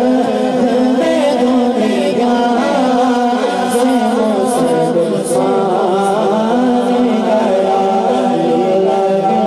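A young male voice sings a naat, an Urdu devotional poem, into a microphone in an ornamented, gliding melody, unaccompanied by instruments, over a steady low drone.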